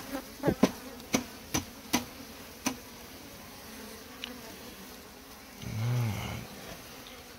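Honey bee colony humming from a large cluster on exposed comb, with a louder buzz rising and falling in pitch about six seconds in. Several sharp taps come in the first three seconds.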